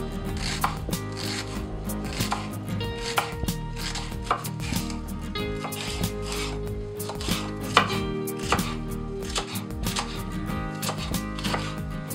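Chef's knife chopping vegetables on a wooden cutting board: a steady run of quick, uneven knife strikes as a red onion is diced, then red and green peppers are cut into pieces.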